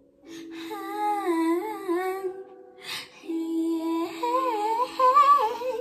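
A woman humming a wavering, wordless melody in two phrases, the second near the end, over background music that holds a steady low chord.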